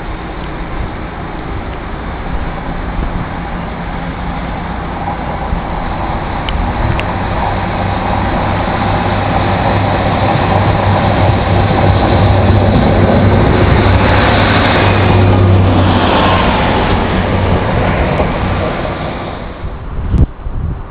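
Diesel multiple unit, a Class 150 Sprinter, approaching round a curve and passing close: a low engine hum and wheel-on-rail noise build up, are loudest about two-thirds of the way in, then fade away near the end. Wind buffets the microphone.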